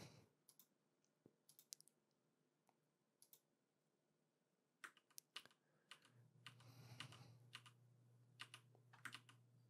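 Near silence, with faint scattered clicks of a computer keyboard and mouse, most of them in the second half, and a faint low hum from about six seconds in.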